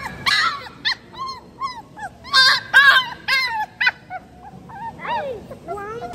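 Small puppy crying in a rapid run of short, high-pitched whimpers and yelps, about two or three a second, loudest in the middle and fading near the end.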